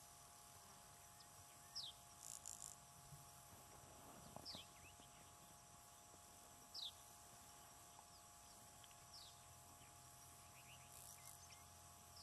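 Near silence outdoors with faint calls of distant small birds: a short, falling, whistled chirp repeated about every two to three seconds, plus two brief high, buzzy bursts, over a faint steady hum.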